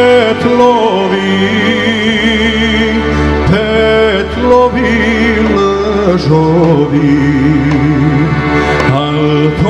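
A man singing a Serbian folk song into a microphone, his ornamented melody wavering with vibrato, backed by a live folk band of accordion, violin, electric guitar, keyboard and drums.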